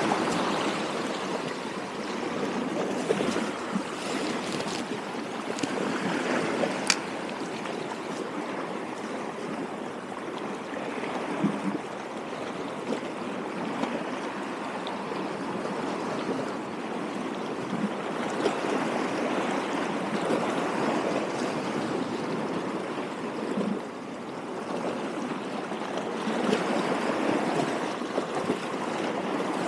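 Water washing and lapping against a rocky shore in a steady rush that swells and eases, with a few brief sharp clicks.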